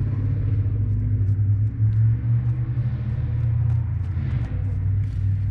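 A steady low rumble with a slightly wavering pitch and a few faint ticks.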